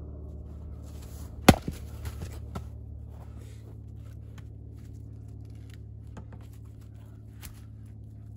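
A splitting axe strikes a firewood round once, a sharp loud crack about a second and a half in, followed by a few fainter knocks of wood, over a low steady hum.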